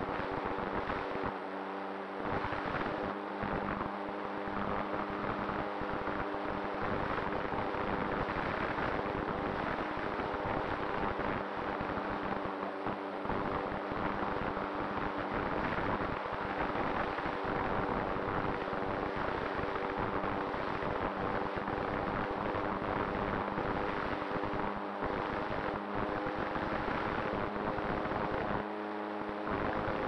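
Onboard sound of a radio-controlled ASW28 scale model glider's nose motor and propeller running steadily in flight: a steady droning tone under heavy wind rush and buffeting on the onboard microphone.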